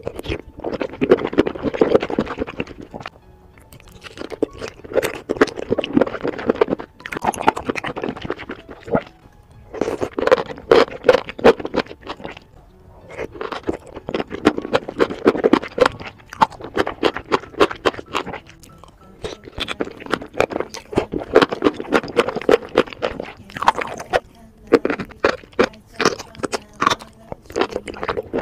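Chewing of mushrooms coated in thick red chilli sauce, enoki among them. It comes in bouts of a few seconds with short pauses between, about eight bouts in all.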